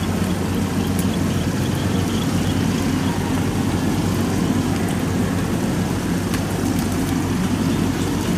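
Kubota combine harvester's diesel engine running steadily under load as it cuts and threshes rice, a constant even drone with no change in pitch.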